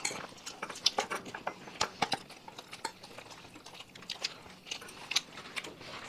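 Spoons or fingers scraping and clinking on plates while serving and mixing rice and curry, many small irregular clicks and scrapes.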